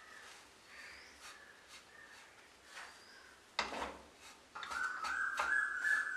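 Wooden spatula stirring and scraping thick rice-flour dough in a non-stick pan, in soft, faint strokes. A sharper knock comes about halfway through, then a steady high tone starts and holds.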